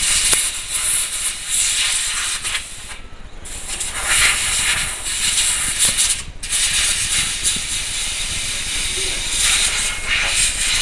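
Electric RC buggy running, giving a steady hiss that drops away briefly twice, about three and six seconds in.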